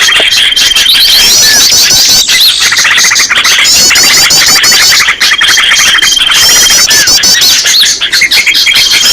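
Bird-lure recording of many small birds calling at once, played loud: dense overlapping chirps and rapid trills, with a level high-pitched trill that comes back three times.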